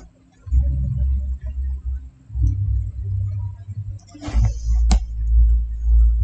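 Loud, uneven low rumbling and thudding, with a short rush of noise about four seconds in and one sharp click just before five seconds.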